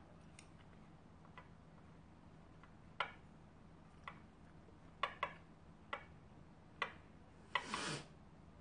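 Disposable wooden chopsticks clicking against bowls during eating: about seven separate sharp clicks spread over a few seconds, ending in a short louder scraping burst.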